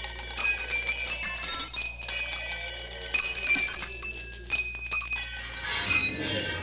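Short brass and copper tubes clanging on a concrete floor, each strike leaving high, bell-like ringing tones. The strikes come a second or so apart, and their rings overlap.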